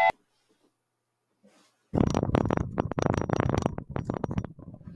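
Dense crackling and rubbing handling noise close to the microphone, starting about two seconds in and continuing irregularly.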